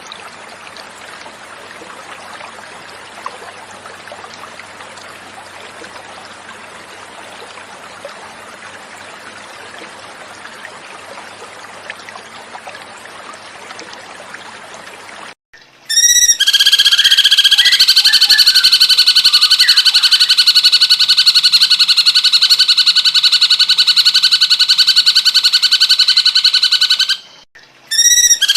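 Running water flows steadily for about fifteen seconds, then cuts off and a loud, fast, continuous trilling song of a cucak cungkok bird starts, lasting about eleven seconds. It breaks off briefly and starts again near the end.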